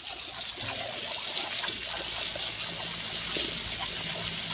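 Water running steadily, a continuous splashing hiss like a tap or shower spraying.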